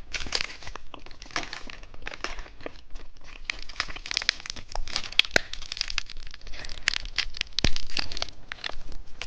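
Plastic candy packaging being crinkled and torn open by hand: a dense, irregular run of crackles and rustles with sharp clicks.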